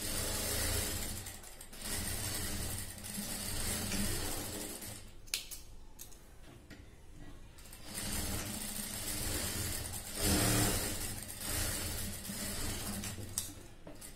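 Industrial sewing machine running in several short stitching runs along a straight seam, stopping and starting between them. A sharp click comes about five seconds in, followed by a quieter pause of about two seconds before stitching resumes.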